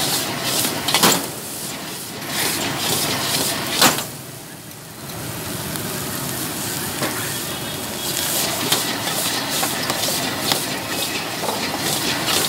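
Fried rice sizzling in a wok while a metal ladle and spatula scrape and toss it, with sharp clanks of metal striking the wok now and then. The sizzle drops for about a second after a clank about four seconds in.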